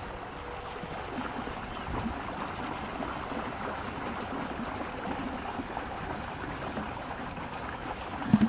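Canal water flowing and gurgling steadily past the bank, with a brief low thump near the end.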